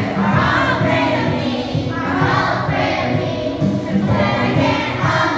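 Children's chorus singing a song together, over continuous music.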